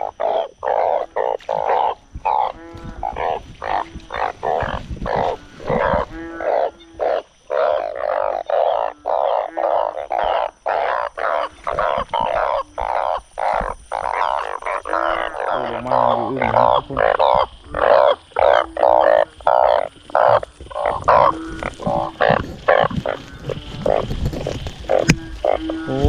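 A dense chorus of narrow-mouthed frogs (oeng) calling after heavy storm rain: many rapid croaks overlap without a break, with short deeper notes every second or two.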